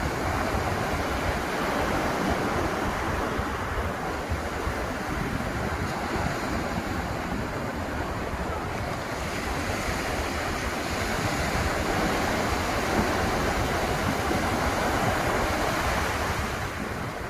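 Atlantic surf breaking and washing onto the beach in a continuous rushing wash that swells and eases, with wind buffeting the microphone.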